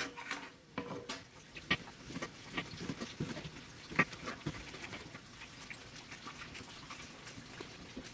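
Kitchen knife slicing fresh okra on a cutting board: a run of light, irregular taps, with a few louder strikes in the first four seconds and fainter ones after.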